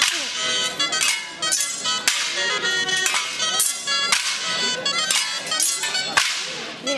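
Dancers' sabres clashing against each other and against small shields in a sword-and-shield folk dance. There are about two sharp, ringing clashes a second in time with the folk music that plays underneath.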